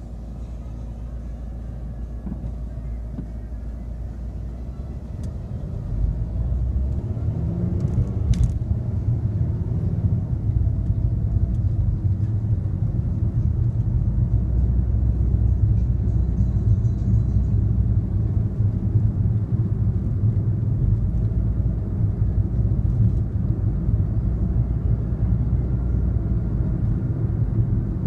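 Car engine and road noise, a steady low rumble that grows louder about six seconds in as the car pulls away from a stop, rising briefly in pitch as it accelerates, then running on steadily at cruising speed.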